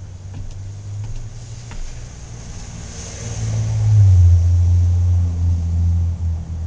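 A low, steady vehicle-like rumble that swells loudly about four seconds in and eases off near the end.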